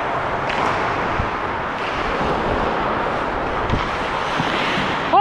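Steady rushing wind noise on a skating ice hockey player's camera microphone, with a few faint knocks on the ice.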